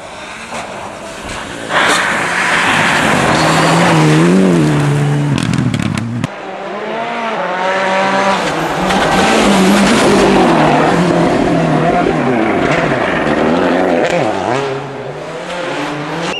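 Rally cars driven flat out on a snow-covered stage, engines revving hard with the pitch rising and dropping through quick gear changes. There is an abrupt cut about six seconds in to another car revving through its gears.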